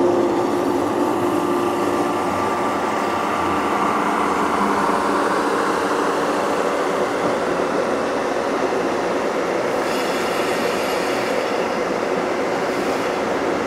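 JR Kyushu 415 series AC/DC electric train running, a steady noise of wheels and running gear with no clear rhythm. A steady hum fades away about a second in.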